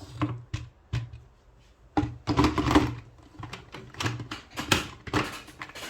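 Irregular knocks and clicks of kitchen utensils and containers being handled, with a denser stretch of clatter about two seconds in.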